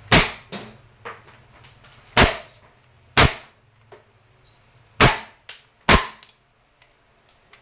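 Umarex Heckler & Koch VP9 CO2 blowback BB pistol firing five shots at uneven spacing, each a sharp crack, with fainter ticks after some of them.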